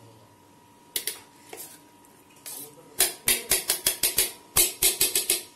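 Steel spoon knocking and scraping against a steel bowl and container: a couple of single metallic knocks, then a quick run of about a dozen sharp clinks, about five a second, in the second half.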